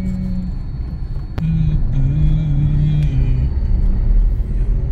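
Car driving, heard from inside the cabin: a steady low rumble of engine and tyre noise, with a short click about a second and a half in.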